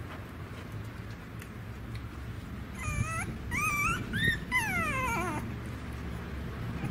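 Young puppy whining, a few high cries that rise and fall about halfway through, the last sliding down in pitch, while maggots are being removed from its wounds.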